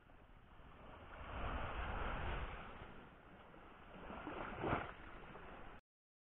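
Small waves washing up on a sandy beach, with wind rumbling on the microphone. The wash swells about a second and a half in and again near the end, then the sound cuts off abruptly.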